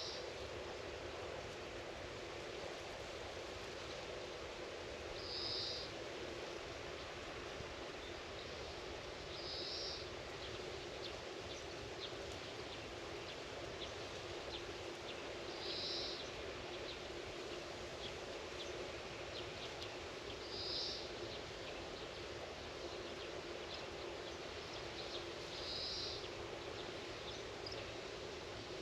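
Rural outdoor ambience: a steady low background hum, with a bird giving a short high call about every five seconds and faint high ticks in between.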